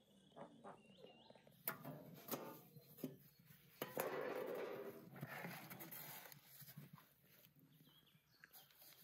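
A metal baking tray being dragged out across the floor of a clay oven with a hook, scraping, loudest about four seconds in. A few knocks come just before it.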